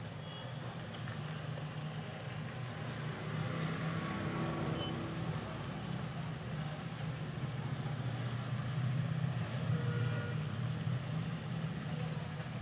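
A steady low rumble with a mechanical quality, a little louder from about three seconds in, with a few faint ticks.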